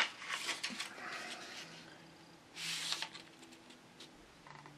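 A sheet of letter-size paper being handled and creased by hand on a wooden table: a sharp tap at the very start, a second of rustling, then a short swish of fingers running along a fold about two and a half seconds in.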